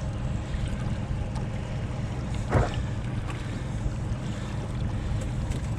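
Boat motor running steadily, a low rumble, with wind buffeting the microphone; a brief short sound stands out about two and a half seconds in.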